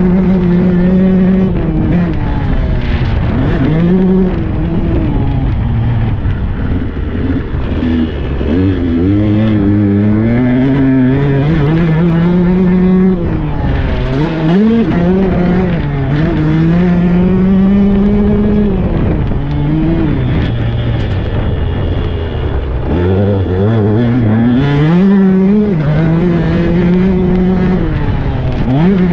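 Husqvarna 125 cc two-stroke dirt bike engine under hard riding, revving up and down as the rider accelerates, shifts and backs off, its pitch climbing and falling again and again. It drops off sharply and picks back up twice, about halfway through and again near the end.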